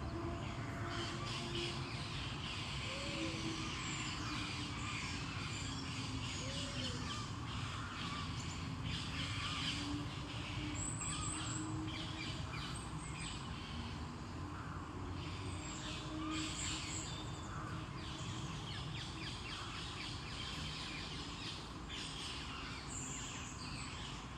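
Several birds singing and calling together in the morning, with many short chirps and a few short, low, arched calls repeating every few seconds, over a steady background noise.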